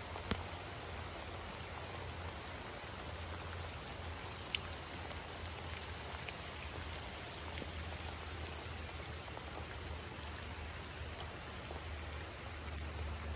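Steady rain falling on a waterlogged hog-fuel and gravel paddock, an even hiss with a low steady rumble underneath and a couple of sharp drip ticks.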